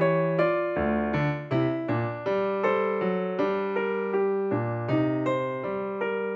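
Background keyboard music with piano-like notes struck at a steady pace.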